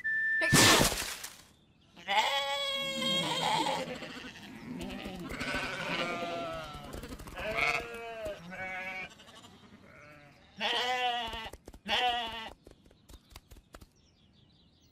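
A cartoon flock of sheep bleating: several wavering bleats that overlap in the middle, then two separate loud bleats near the end. A short, loud rush of noise comes under a second in.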